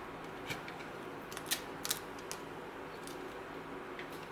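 Craft knife (X-Acto) being drawn along a groove in a 3D-printed PLA panel, cutting through vinyl covering: a handful of light, sharp clicks and ticks as the blade catches, over a steady faint hum.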